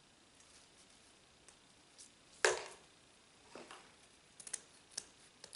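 Scissors snipping through fabric ribbon, cutting it on the diagonal: a handful of short, sharp snips, the loudest about two and a half seconds in and several quicker ones near the end.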